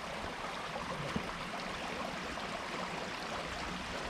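Steady rushing of running water, with one small click about a second in.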